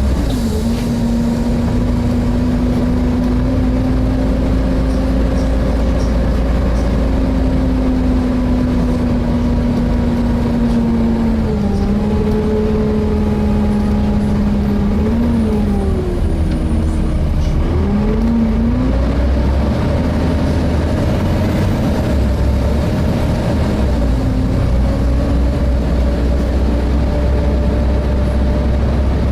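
Volvo B7TL double-decker bus's six-cylinder diesel heard from on board while under way: a steady engine rumble with a whine whose pitch holds, dips twice as the bus slows or changes gear about halfway through, then climbs again.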